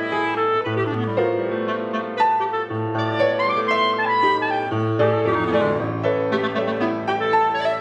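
Clarinet and Feurich grand piano playing a contemporary classical duet, with quick-moving melodic lines over a low piano note that returns about every two seconds.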